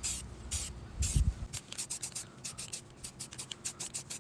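Aerosol can of spray paint hissing in a quick series of short bursts, about four or five a second after a couple of longer puffs, laying down a tan base coat. A low thump about a second in.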